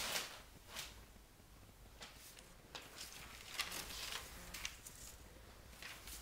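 Irregular soft rustling and brushing as paper and felt etching blankets are handled, with a louder scuff at the start and another cluster of rustles around the middle.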